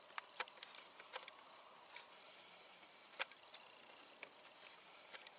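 Insects trilling steadily at a high pitch, with a few sharp clicks scattered through.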